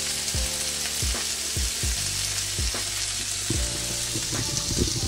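Carrots, celery, onion and cubed chicken sautéing in a frying pan, sizzling steadily.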